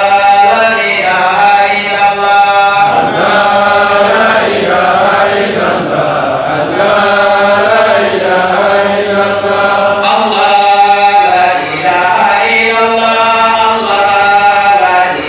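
A man's voice chanting an Islamic devotional song through a handheld microphone and loudspeakers, in long melodic notes with short pauses for breath.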